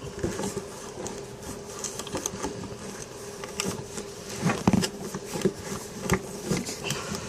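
Hand drill being cranked to bore a hole, its gears and bit making irregular small clicks and ticks.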